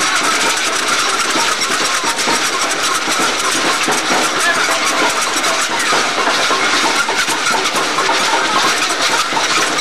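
Loud, steady din of a dense crowd, with voices mixed into a constant rushing noise.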